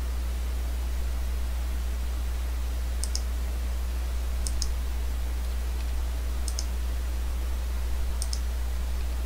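Computer mouse clicking four times, each a quick press-and-release double click, about three, four and a half, six and a half and eight seconds in, over a steady low hum.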